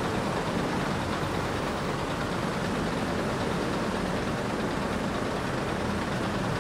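Daewoo BH115 bus's rear-mounted diesel engine idling steadily.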